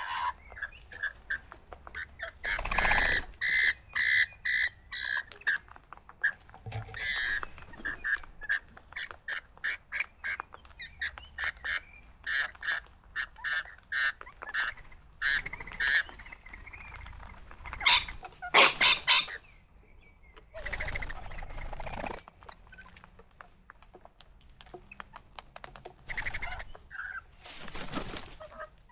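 Parrots calling: a rapid run of short repeated chirps, broken by several loud squawks, the loudest about two-thirds of the way through.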